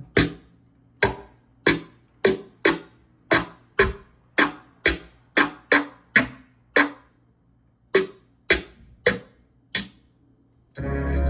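Hip hop beat with the drums and bass dropped out, leaving one short, quickly decaying pitched sample playing a sparse, uneven melodic pattern of about seventeen notes. The full beat, with heavy bass, comes back in near the end.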